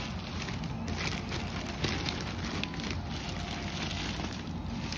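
Clear plastic packaging crinkling and rustling as it is handled, an irregular crackle of many small clicks.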